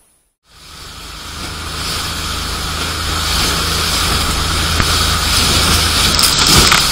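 A motorboat runs at speed through choppy waves, its engine humming under the hiss of spray and wind on the microphone. The sound comes in about half a second in and grows louder, with a spray hit near the end.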